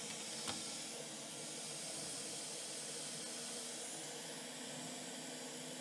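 Faint steady hiss with one light click about half a second in.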